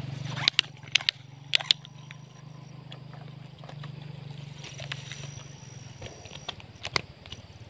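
Insects chirring steadily at a high pitch over a low buzzing hum that fades out about six seconds in. A handful of sharp clicks and taps come in the first two seconds, and one more near the end.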